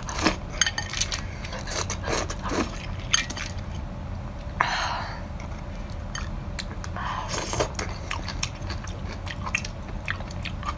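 Close-up eating sounds of a person biting small snails off metal skewers and chewing them, with many small clicks and crackles and two longer noisy bursts about halfway and three-quarters through. A steady low hum runs underneath.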